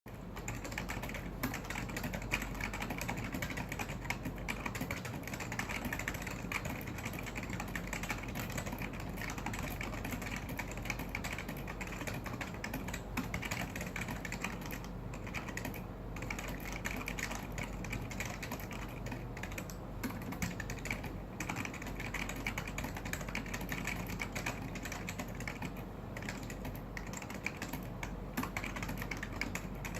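Continuous typing on a KBParadise V60 mechanical keyboard with Matias Quiet Click switches, damped tactile switches: a steady, dense stream of key clicks.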